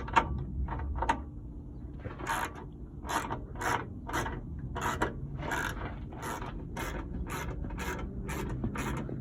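Hand ratchet with an 8mm socket backing out a small bolt: a few clicks, then a steady run of short ratcheting rasps, about two a second, as the handle is swung back and forth.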